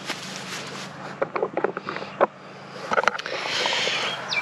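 Handling noise from a camera being picked up and carried: a cluster of knocks, scrapes and clicks, then rustling against the microphone near the end.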